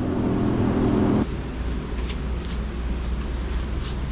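A steady engine-like drone that cuts off sharply about a second in, leaving a lower steady hum with a few faint ticks.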